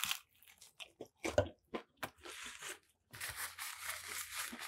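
Biting and chewing a crispy fried Nashville hot chicken sandwich: scattered crunches and mouth clicks, then denser, steadier crunching from about three seconds in.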